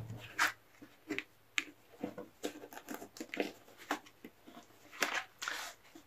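Tarot cards being handled on a table: cards slid and turned over by hand, a string of soft scrapes and light taps with a longer slide about five seconds in.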